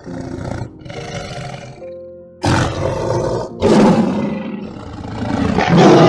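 Tiger growling and roaring: two softer growls in the first two seconds, then loud roars that start abruptly about two and a half seconds in and again near four seconds, and a last roar that swells to the loudest near the end.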